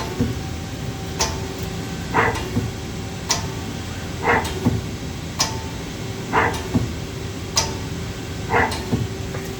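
A Mazak QTS-350 CNC lathe running under power, its steady machine hum with a held tone broken by a regular mechanical rhythm of about one knock a second, alternating between a sharp high click and a duller knock.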